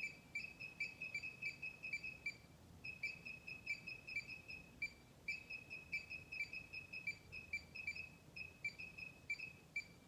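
Rapid high-pitched electronic beeping, about three or four beeps a second, in runs with short pauses, like a device's alarm.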